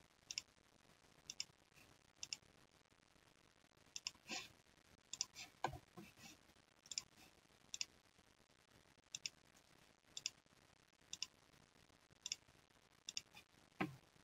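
Faint, sharp clicks, mostly in quick pairs, about one pair a second, with a low thud near the middle and another near the end.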